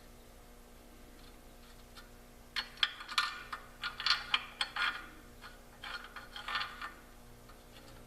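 Light metallic clicks and clinks of hand tools and shock-absorber parts being handled while fitting a Jeep rear shock: a quick cluster about two and a half seconds in, and a shorter one later.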